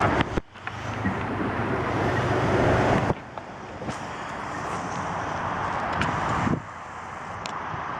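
Airbus A320 airliner's jet engines on approach to land, a steady rushing noise with wind buffeting the microphone; the noise changes level abruptly a few times.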